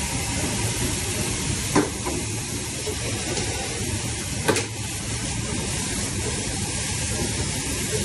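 Pre-rinse spray nozzle hissing steadily as it sprays water against the stainless steel wash tank of a commercial dish machine, with two sharp knocks, about two seconds in and again near the middle.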